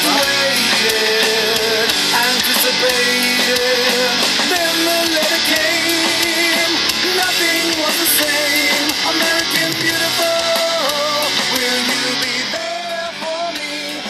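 A song with a singing voice and guitar, played through a small TruSound Unplug Bluetooth speaker as a sound test.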